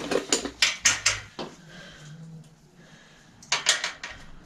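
Metal hand tools clinking and clattering as they are picked up and handled: a quick run of sharp clinks over the first second and a half, then another short burst about three and a half seconds in.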